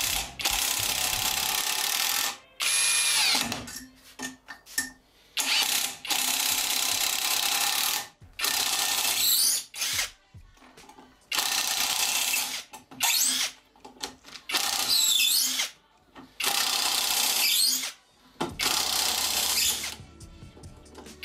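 Cordless impact wrench (Drillpro) hammering as it drives long wood screws into a timber beam on its most powerful setting. It comes in about a dozen runs of a second or two each, started and stopped many times.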